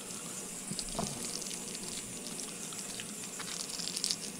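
Ultrasonic parts cleaner running with a steady hiss as it cleans parts, with a few light crinkles and clicks of a plastic parts bag being picked open by gloved fingers around a second in and near the end.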